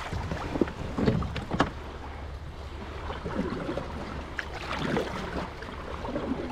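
Kayak paddle strokes in the water, with a few short sharp knocks over a steady low wind rumble on the microphone.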